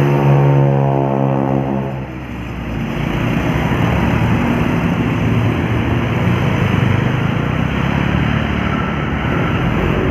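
Heavy diesel vehicle passing close, its engine drone dropping slightly in pitch and fading about two seconds in, followed by steady rumbling road traffic.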